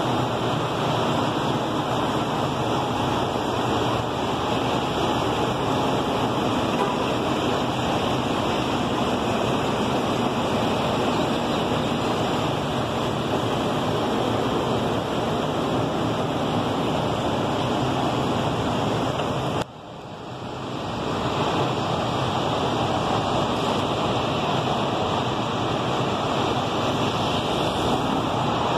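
Steady, even noise of street traffic and idling city transit buses. About two-thirds of the way through it drops suddenly for a moment and then comes back.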